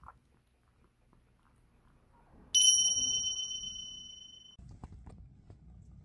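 A bright bell-like ding rings out suddenly about two and a half seconds in and fades for about two seconds before it cuts off. Before it, faint soft clicks of a kitten lapping milk from a saucer.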